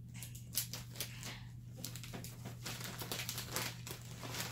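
A clear plastic zip bag crinkling as it is handled and rummaged through: a run of irregular crackles.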